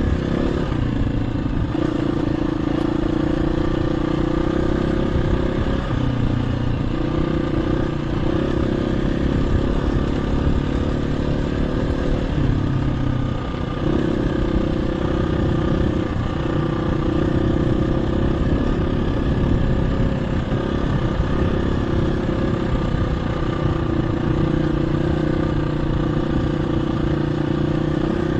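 KTM 350 EXC-F single-cylinder four-stroke dirt bike being ridden, its engine note holding steady and dipping briefly a few times.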